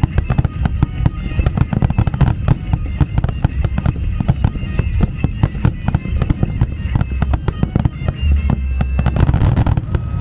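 Fireworks display: a rapid, continuous string of bangs and booms from aerial shells bursting, over a deep rumble, with music playing underneath.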